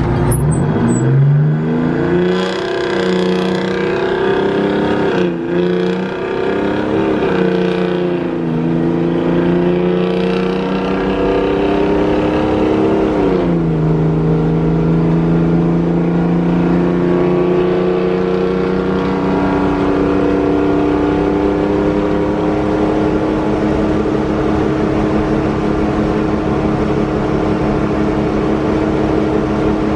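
Straight-piped 6V92 Detroit Diesel two-stroke V6 of an old fire truck, heard from inside the cab, pulling hard from a stop with its pitch rising quickly. Partway through the pitch drops sharply as it shifts up, then it runs on at highway speed with the pitch slowly climbing.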